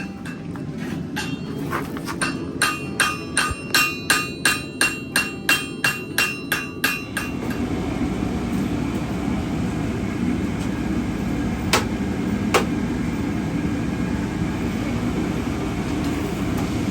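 Blacksmith's hammer striking an anvil in a steady rhythm, about two to three ringing blows a second, stopping about seven seconds in. A steady low rumble follows, with two sharp clicks.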